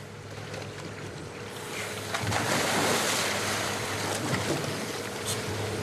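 Splash into the sea about two seconds in as a bait crate goes over the side of a dive boat, followed by churning, rushing water. A steady hum from the boat runs underneath.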